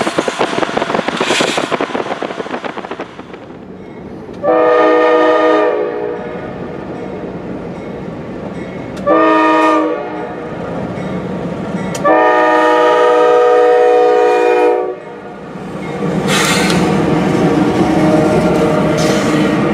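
A diesel freight locomotive's air horn sounding a long blast, a short one and another long one as the train nears a grade crossing. This is the end of the standard crossing signal. The locomotive then passes close by, and its engine and wheel noise rise to a steady rumble.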